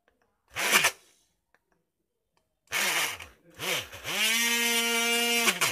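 Homemade mini drill built from a 12 V 550-size DC motor, drilling small holes in a board. It is switched on in short bursts, the whine rising as the motor spins up and falling as it winds down, then runs at a steady pitch for about a second and a half before being cut off sharply near the end.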